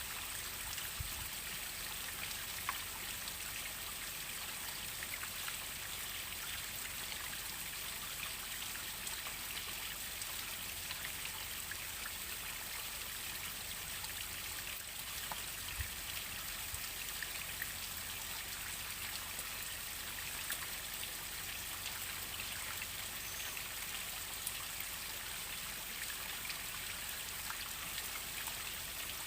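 Waterfall water falling and splashing in a steady hiss, with scattered small drips and splashes.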